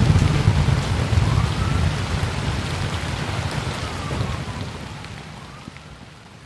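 Heavy rainfall with a deep low rumble underneath, fading out steadily over the last couple of seconds.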